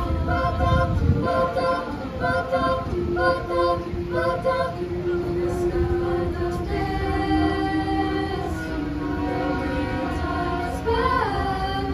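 Treble choir singing a cappella, short repeated phrases of about two notes a second for the first half, then longer held chords, over a steady low rumble.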